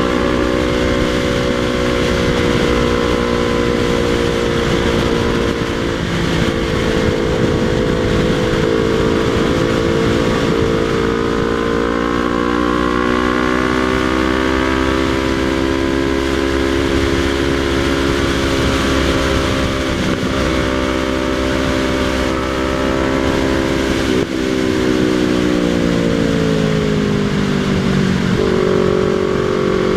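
Yamaha MT-03 motorcycle with a Jeskap aftermarket exhaust, dB killer removed, running under way: a steady engine note that rises and falls slowly with the throttle. About three quarters of the way in it breaks briefly, then falls in pitch and jumps back up near the end.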